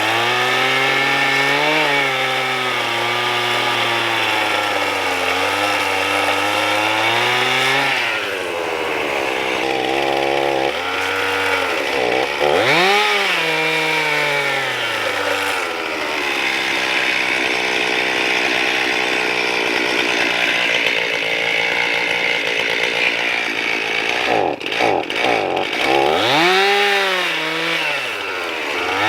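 Chainsaw running and cutting pecan tree limbs, its engine speed rising and falling throughout, with two sharp rev-ups, one about halfway through and one near the end.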